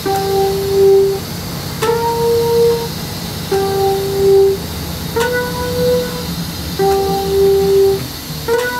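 A repeating two-note tone, alternating higher and lower, each note held about a second and one starting every second and a half or so, over a steady low hum.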